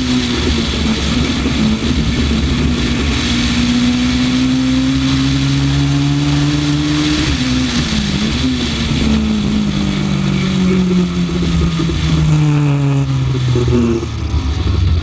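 Honda Civic rally car's engine under load at speed. Its pitch climbs slowly, dips briefly about eight seconds in, then falls gradually as the car slows, easing off near the end, over a steady rush of road and wind noise.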